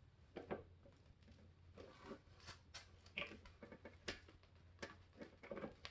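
Faint scattered clicks and short rustles of a bagless vacuum's plastic dirt bin and cyclone assembly being handled as the collected dirt is separated out, over a low steady hum.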